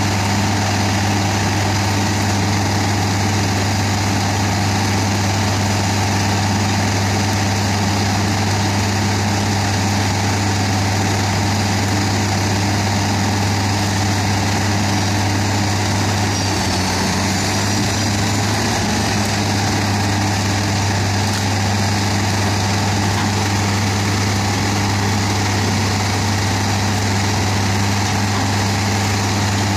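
Doppstadt DW 3060 slow-speed shredder running while it shreds brushwood, its diesel engine giving a loud, steady drone with a deep hum. A faint whine rises and falls briefly about halfway through.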